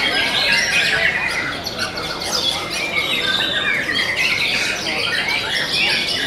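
White-rumped shama singing in rapid, varied phrases, overlapping with a dense chorus of other caged songbirds.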